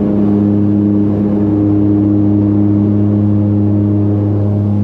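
Engine running steadily at one constant pitch, a loud, even drone.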